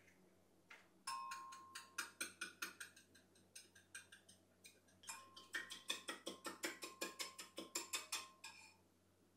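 Quick, regular clicking or tapping, about four sharp taps a second, in two runs of three to four seconds each with a short pause between.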